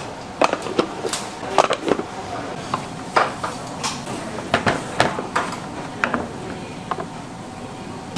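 Dishes and utensils clattering: a string of irregular sharp knocks and clinks.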